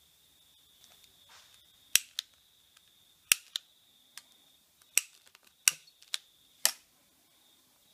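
Sharp clicks of a long-nosed gas lighter's piezo igniter being worked over and over, about nine clicks from about two seconds in, irregularly spaced and some in quick pairs.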